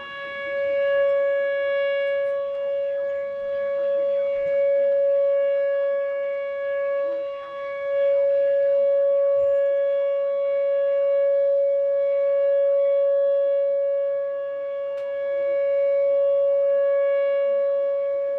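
Outdoor warning siren sounding a steady, unwavering tone, its loudness swelling and fading every few seconds; the activation signals a severe-weather warning.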